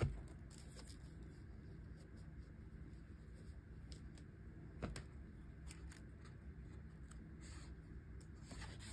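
Quiet room noise with a low steady hum, broken by a few light clicks and taps from handling the coloring book, a sharper knock right at the start.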